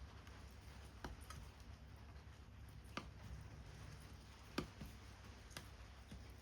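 Sparse light clicks and ticks of paper-craft work, paper pieces and small tools handled at a table: about half a dozen, the sharpest a little past halfway, over a faint steady hum.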